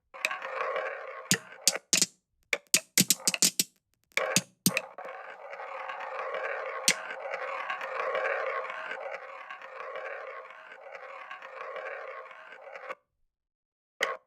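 Marbles running down a marble run: a string of separate clicks and knocks, then about eight seconds of steady rolling along the track with one sharp click partway through, stopping suddenly.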